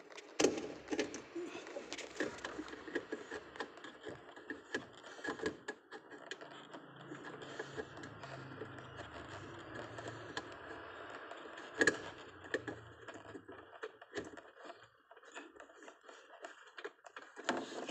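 Irregular plastic clicks, knocks and rubbing from hands working the fog lamp bulb, its socket and wiring connector into place behind the car's bumper, with a couple of sharper clicks.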